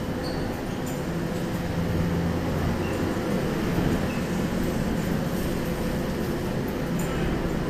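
Steady hum of a stopped Shizuoka Railway electric commuter train waiting at the platform with its doors open, its onboard equipment running, with a low tone that comes and goes.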